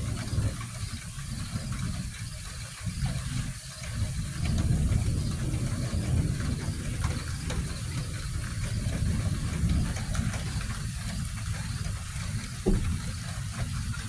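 Heavy rain pouring down, a steady hiss over a low, wavering rumble, with a brief thump near the end.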